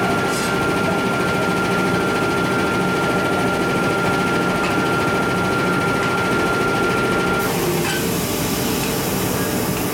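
Power forging hammer and its machinery running steadily while a red-hot steel ring sits on the anvil between blows, with a thin steady whine that stops about seven and a half seconds in, when a high hiss comes in.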